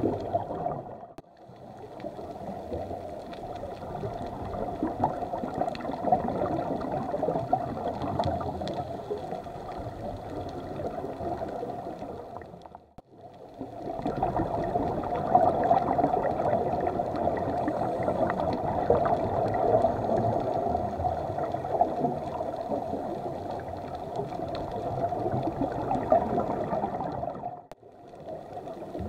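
Steady underwater bubbling and gurgling water noise picked up by a camera in a dive housing, with faint scattered clicks. It fades out and back briefly three times, where the footage cuts.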